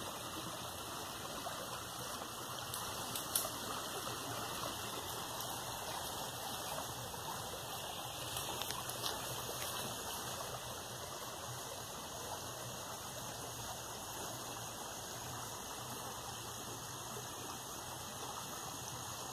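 A small forest stream flowing steadily, an even rush of water, with a few faint clicks over it.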